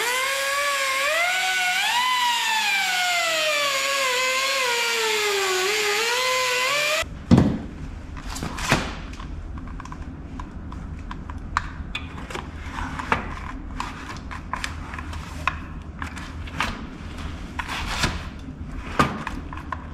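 Power grinder running for about seven seconds, its whine rising and then sagging in pitch as it bears on the metal, before it cuts off suddenly. After it come scattered clanks and knocks of metal parts being handled.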